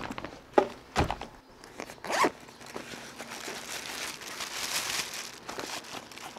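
Canvas backpack set down on a bench with two thumps, then a zip on it is pulled along in a long, noisy stretch, with fabric rustling as the bag is handled.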